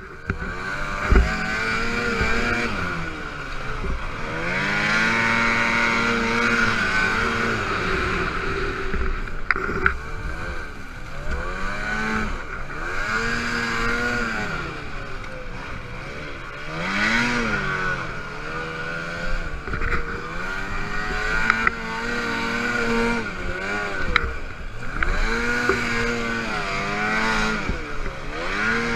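Ski-Doo Summit snowmobile engine revving up and falling back over and over as the sled climbs and sidehills in snow, each swell lasting about one to two seconds, with a few sharp knocks along the way.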